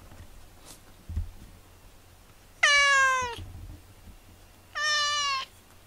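A house cat meowing twice: a loud first meow that falls in pitch, then a shorter, steadier second meow about two seconds later.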